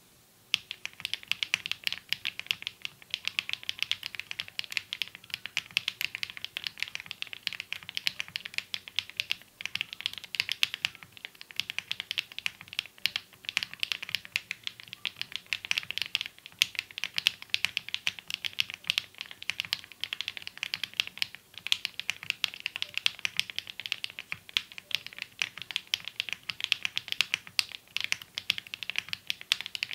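Mechanical keyboard being typed on quickly and continuously, a dense stream of key clicks and bottom-outs that starts about half a second in.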